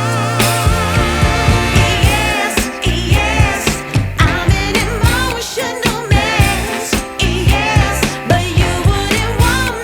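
Background pop/soul music with a sung vocal line and a steady beat.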